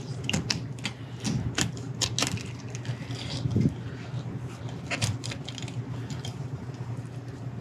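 A knife crunching through a black sea bass's pin bones as the fillet is cut free, heard as a run of irregular crisp clicks and crackles.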